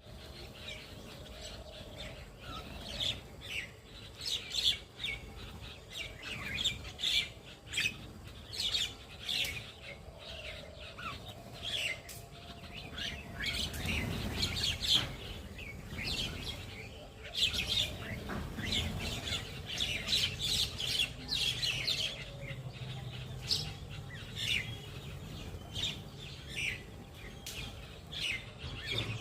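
A group of mynas calling, with many short, sharp chirps and squawks repeated one after another.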